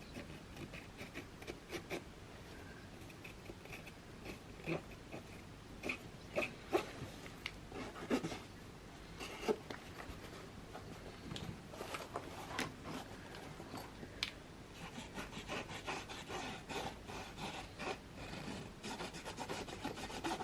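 Posca paint marker drawing on fabric: a faint, irregular scratching of the marker tip in short strokes, with small taps and clicks, busier near the end.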